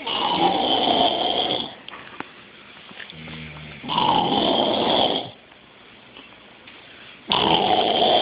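Loud, rasping snoring: three long snores about three and a half seconds apart, each with a pitch that drops slightly, and softer, lower breaths between them.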